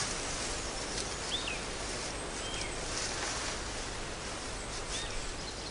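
Forest ambience: a steady hiss with three brief, falling bird chirps.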